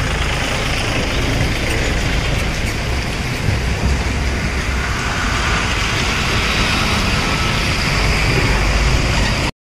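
Motorcycles riding through floodwater on a street: engines running and tyres splashing through the water over a steady low rumble. It cuts off abruptly near the end.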